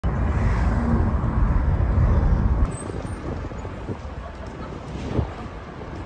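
City street noise: a heavy low traffic rumble that drops off abruptly about two and a half seconds in, leaving a quieter, even background hum.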